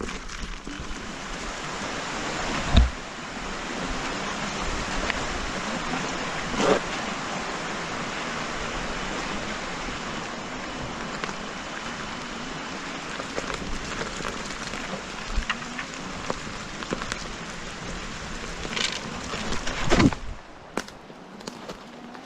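Steady rushing noise of wind and tyre rolling, recorded while riding a KingSong S22 electric unicycle, with a few sharp knocks from bumps (about 3 s in, about 7 s in and near 20 s), after which it turns quieter.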